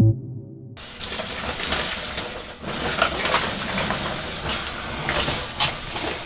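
Metal wire cage rattling and clinking as it is handled, with scattered knocks over a steady hiss.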